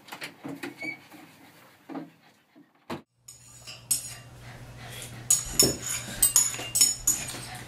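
Spoons clinking and scraping against bowls as two people eat, a quick irregular run of short clicks starting about three seconds in.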